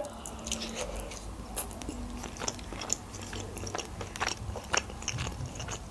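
A person chewing a mouthful of grilled chicken with the mouth closed: soft, irregular mouth clicks and smacks.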